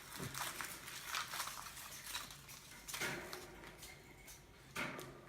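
Light clicking and rustling of small plastic toy figurines and capsules being handled on a table, with a few slightly louder knocks.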